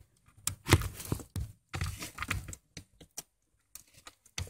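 Irregular clicks, knocks and rustling of hands working a screw into the plastic trim under a car's dashboard.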